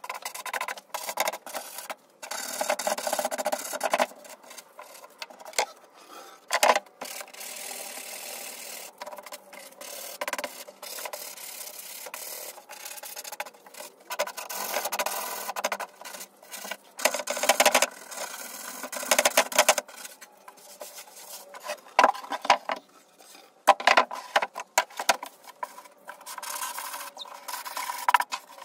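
Wood being worked by hand with an abrasive tool: irregular rubbing strokes in spells with short pauses between, a few of them sharper and louder.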